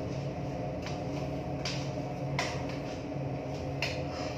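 Thin shards of set chocolate clicking and scraping as they are picked off a metal baking tray, four short light sounds over a steady machine hum.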